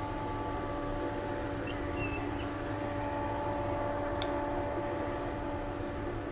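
Empty covered hopper cars of a freight train rolling past: a steady rumble of wheels on rail with a steady hum of several tones over it, a short squeak about two seconds in and a single click about four seconds in.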